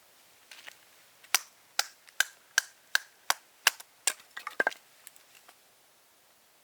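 Bark River Puukko knife being batoned through wood: about ten sharp knocks of the baton on the blade's spine, roughly two or three a second, several with a short metallic ring. They end in a quick cluster near the five-second mark.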